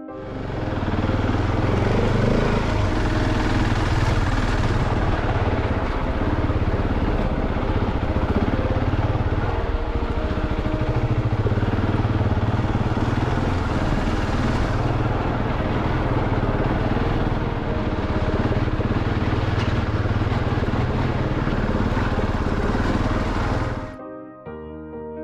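Husqvarna 701 Enduro's single-cylinder engine running as the bike is ridden up a steep trail, with a steady rush of wind and riding noise. It cuts off abruptly near the end, giving way to piano music.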